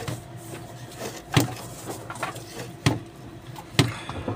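Three sharp clicks of pliers working on a truck's wiring harness, over a steady low mechanical hum.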